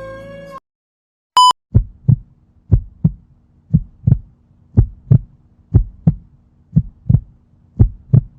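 Heartbeat sound effect: seven lub-dub double thumps, low and evenly spaced at about one beat a second. A short high beep comes just before the first beat, and a flute melody cuts off in the first half second.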